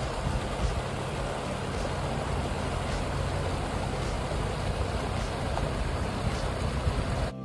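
Small mountain creek rushing and splashing over rocks, a steady, even rush of water.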